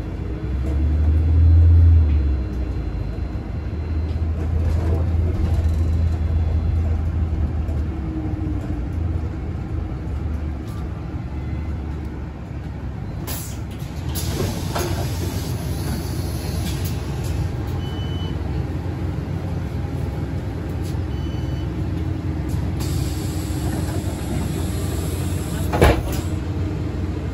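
Solaris city bus heard from inside the cabin as it drives: a low drivetrain hum, loudest for the first couple of seconds, then running steadily. Two short high beeps come in the middle, and a single sharp knock sounds about a second before the end as the bus stands at a stop.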